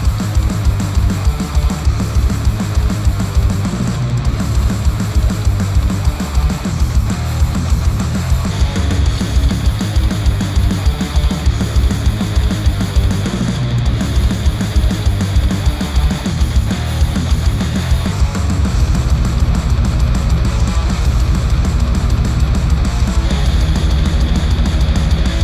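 Instrumental heavy rock music with electric guitar and drums, played back through headphones and picked up by microphones at the earcups.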